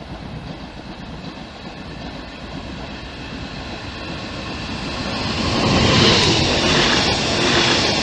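Stadler FLIRT electric multiple unit approaching and passing close at speed. It swells from a distant rumble to loud wheel-on-rail running noise about five to six seconds in, with a steady electric motor whine over it.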